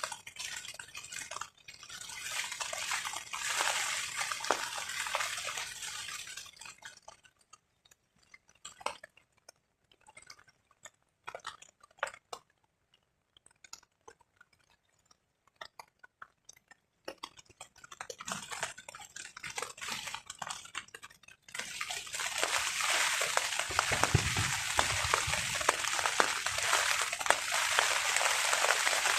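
Rain on a tarp, coming in waves: steady heavy patter for the first several seconds, then a lull of scattered single drips, then a sudden return to heavy rain about two-thirds of the way through, with a low rumble of wind gusts near the end.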